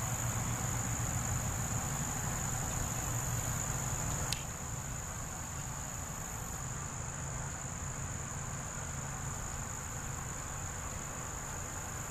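A steady, high-pitched insect chorus trilling without a break, over a low steady hum. There is one sharp click about four seconds in, after which the sound is slightly quieter.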